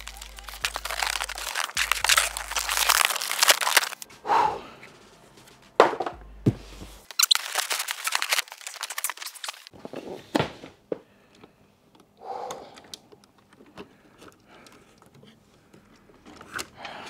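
Cardboard and plastic packaging being crinkled and torn open while an RC truck is unpacked from its box. There are two long stretches of dense crinkling in the first ten seconds, then quieter rustles and knocks.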